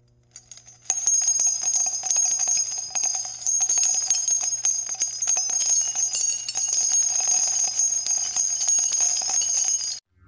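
Bells jingling steadily, a bright high ringing with many small rattling strikes. It starts about a second in and cuts off suddenly near the end.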